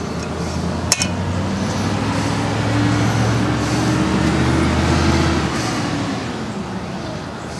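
A motor vehicle driving past, its low engine hum building over a few seconds and then fading away. A sharp click about a second in.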